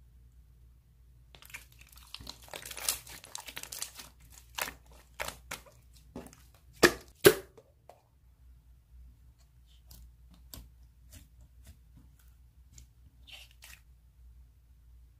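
Slime being handled: a dense run of crackles, then two loud sharp pops about seven seconds in, followed by a few scattered faint clicks.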